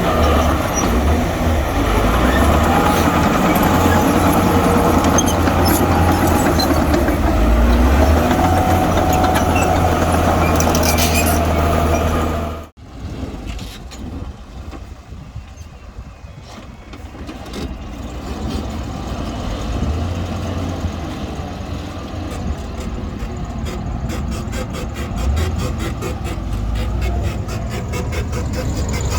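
Heavy-equipment diesel engine running steadily and loud, then cut off abruptly a little under halfway through. After the cut, engine noise comes back quieter and builds up again, with a fast, even ticking near the end.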